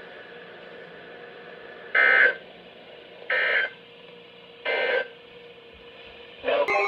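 Three short digital data bursts about 1.3 seconds apart over a faint radio hiss: the Emergency Alert System end-of-message code sent over weather radio, marking the close of a warning. Near the end a louder, steady sound begins.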